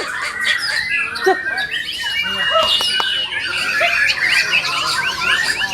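White-rumped shama singing: a fast, varied run of chirps, squawks and whistles, with one long held whistle about two seconds in.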